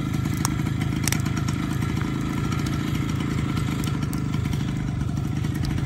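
A Harley-Davidson X-90 minibike's 90 cc two-stroke single-cylinder engine idling steadily.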